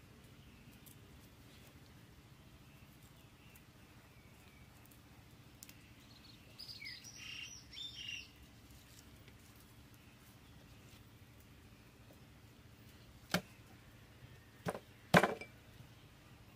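A bird chirps in a short run of calls about halfway through, over a faint outdoor background. Near the end come three sharp knocks of a kitchen knife striking while garlic cloves are peeled and trimmed, the last the loudest.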